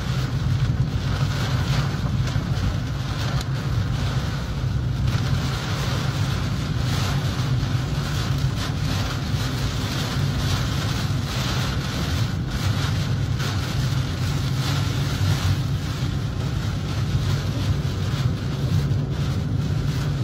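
Tornado wind and heavy rain battering a car, heard from inside the cabin: a steady low rumble of wind with a hiss of rain on the windshield and body, and scattered sharp hits throughout.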